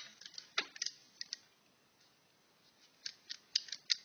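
Tools and small metal hardware clinking and clicking as they are picked out of a toolbox and set down: a few sharp knocks early, a quiet stretch, then a quick run of clicks near the end.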